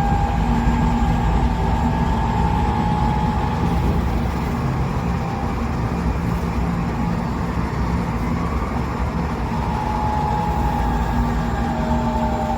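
Tokyo Metro 8000 series train car heard from inside while running: steady wheel-on-rail rumble with whining running tones that sound muddy and out of tune, in two close tones near the end. The uploader puts this abnormal sound down to only one axle of the bogie having had its wheels reprofiled.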